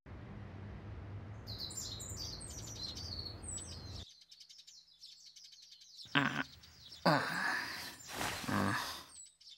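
Small birds chirping, morning birdsong in short high chirps, over a steady low hum that cuts off about four seconds in. A few short murmurs come about six seconds in and again later, as a sleeper stirs.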